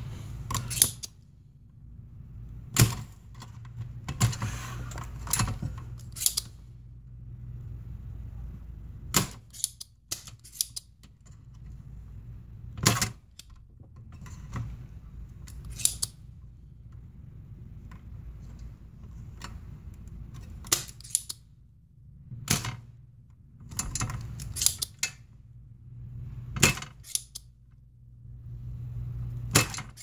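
Spring-loaded desoldering pump (solder sucker) snapping again and again as it is fired to pull solder off capacitor joints during a recap: about fifteen sharp snaps, irregularly a second or a few seconds apart, over a low steady hum.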